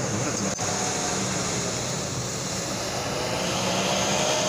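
Small 4x4's engine running steadily as it pushes through deep mud and water, with a steady hiss over it; the engine's pitch creeps slightly higher in the second half.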